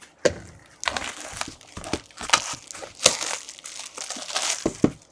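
Plastic shrink-wrap being torn and pulled off a sealed trading card box, crinkling and crackling irregularly with sharp snaps.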